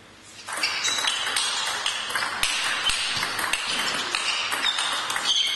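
Table tennis rally: the ball clicking rapidly back and forth off the bats and the table, starting about half a second in.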